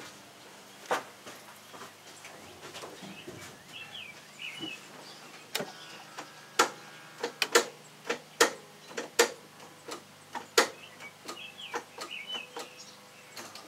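Starter solenoid on a mud-packed Chevy pickup clicking with each try of the key while the engine does not crank: a single click about a second in, then a run of about nine sharp clicks in the middle. The starter is jammed with mud. Birds chirp briefly before and after the clicks.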